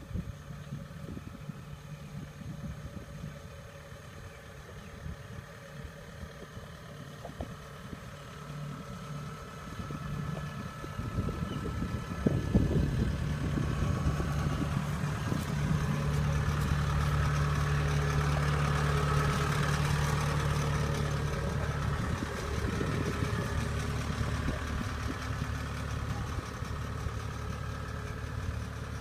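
Kubota tracked rice combine harvester's engine running steadily as the machine crawls past, growing louder about halfway through as it draws close, with a single thump just as it gets louder.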